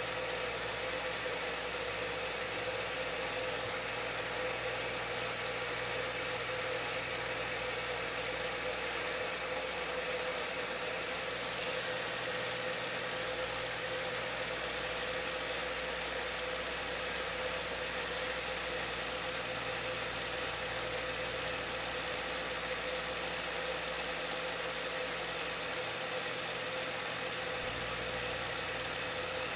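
Steady mechanical running noise with a constant hum and hiss.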